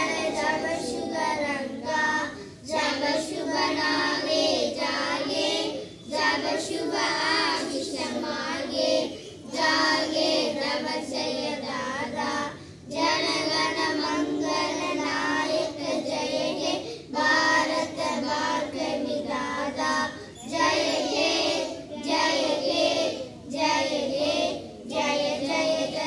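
A small group of children singing a song together, in sung phrases separated by short pauses for breath.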